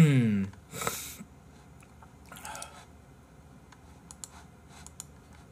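Someone eating: a short breathy hiss about a second in, then faint, scattered clicks and chewing sounds.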